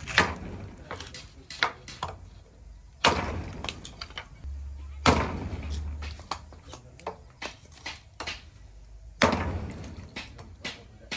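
A freshly restored heavy steel cleaver chopping into a thin wooden slat on a wooden bench. Four hard chops land near the start and at about three, five and nine seconds, each ringing briefly, with lighter cuts and taps between them.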